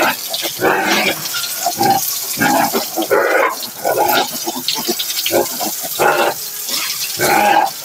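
A litter of piglets squealing and grunting in short, repeated calls as they jostle around a feed trough.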